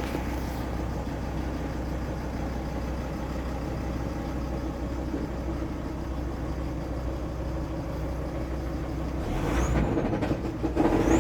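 Volkswagen Crafter engine running steadily with a knock from its broken front damper pulley on the crankshaft. Near the end the sound gets louder, with two short high squeaks.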